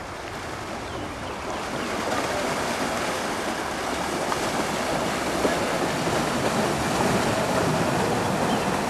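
Floodwater splashing and churning as a herd of cows wades through a swollen river, a dense rushing wash that gets louder over the first couple of seconds and then holds.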